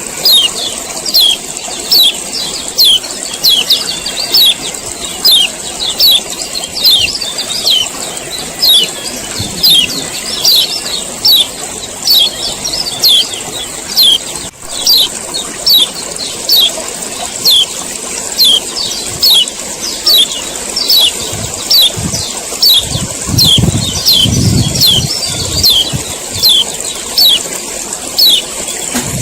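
Male kecial kuning (white-eye) giving its 'ciak ciak' call: a fast, unbroken series of sharp, high, downslurred chips, about one to two a second. A low rumble joins in about two-thirds of the way through.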